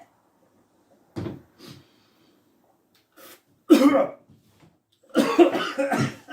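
A man coughing and clearing his throat from the burn of a freshly eaten ghost pepper: several separate coughs, the loudest about four seconds in, and a longer spell of coughing near the end.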